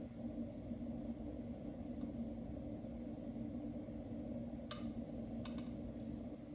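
Steady low hum of reef aquarium pumps, with two short sharp clicks about three-quarters of the way through.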